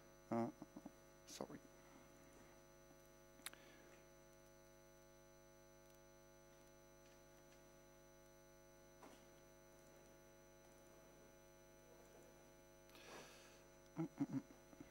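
Near silence over a steady electrical mains hum made of many evenly spaced tones. It is broken by a few faint short sounds: a brief murmur of voice about half a second in and again near the end, and a couple of faint clicks.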